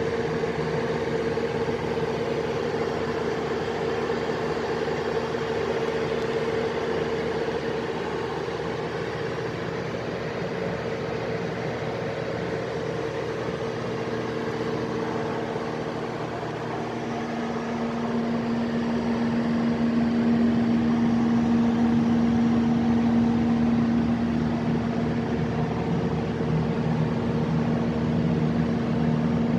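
Kohler 1,000 kW standby generator set with its Mitsubishi diesel engine running steadily, a constant drone with a steady hum. It gets louder about two-thirds of the way through.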